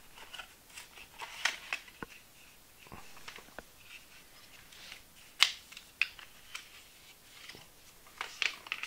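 Cardboard packaging handled by hand: scattered rustles, scrapes and light taps as a small box and its cardboard inner tray are turned over and pulled apart, with one sharper snap about five and a half seconds in.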